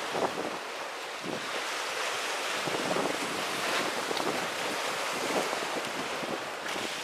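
Rough sea surf washing steadily, with wind blowing on the microphone.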